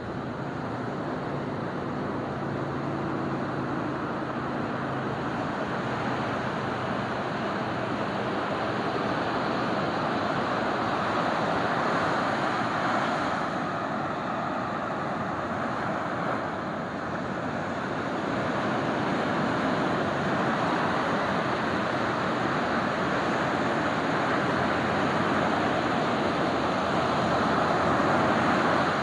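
Ocean surf breaking and washing up the beach: a continuous rush of waves that slowly swells and eases, strongest near the end.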